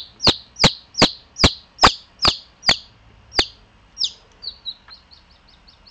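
Baby Japanese bantam chick peeping loudly, about ten sharp peeps falling in pitch at roughly two to three a second, then softer, quicker chirps after about four seconds.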